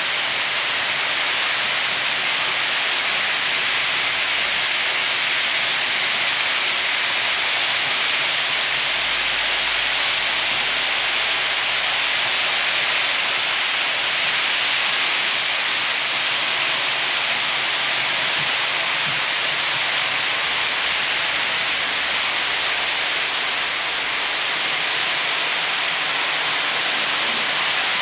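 Märklin model trains rolling round their track, a steady rushing hiss of many wheels on the rails that does not change.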